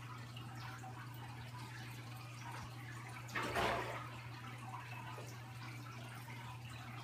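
Aquarium water circulation: a steady light trickle and bubbling of the filter return at the surface over a constant low pump hum, with a brief louder rush of water about three and a half seconds in.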